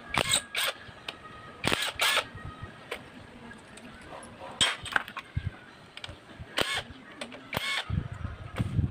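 Cordless impact driver loosening engine-cover screws in about eight short, sharp bursts at irregular intervals.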